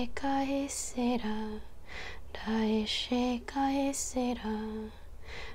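A woman singing light language unaccompanied: soft, lullaby-like phrases of wordless syllables on a few held notes, with hissing 'sh'-like sounds between the notes.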